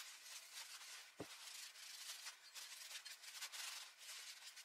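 Faint rubbing of an acetone-soaked rag wiping a metal heat-exchanger end cap to degrease it, with one soft thump about a second in.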